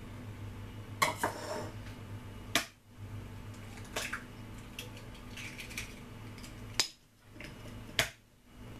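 Eggs cracked against the rim of a glass mixing bowl: several sharp taps and clicks a second or more apart, with the shells pulled open between them.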